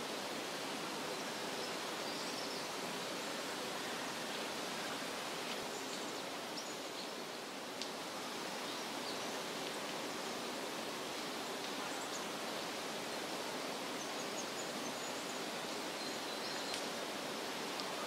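Outdoor nature ambience: a steady, even rushing hiss, with a few faint high chirps and a single tick about eight seconds in.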